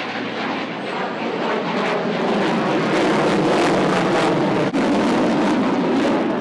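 Fighter jet's engines heard from the ground as it flies a display pass: a loud, rushing jet noise that builds over the first few seconds and holds, with a brief dropout just before the end.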